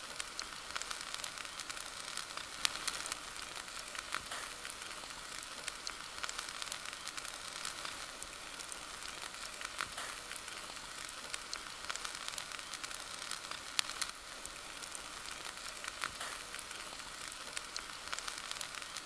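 T-bone steak sizzling in a wire grill basket over campfire coals: a steady hiss with scattered sharp pops and crackles.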